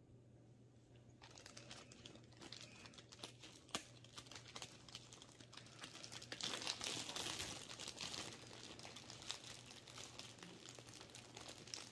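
A thin plastic bag crinkling and rustling as hands handle it and dig through it. It starts about a second in and is loudest between about six and eight seconds in.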